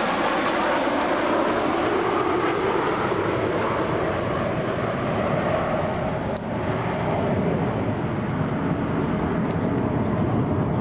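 Jet engine noise from a formation of about a dozen F-15 fighters flying over: a loud, steady rushing sound with a slowly falling tone in it. A brief dip comes about six seconds in.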